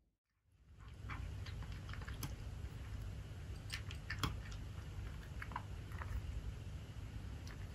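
Irregular faint clicks and small crunching ticks over a low steady hum.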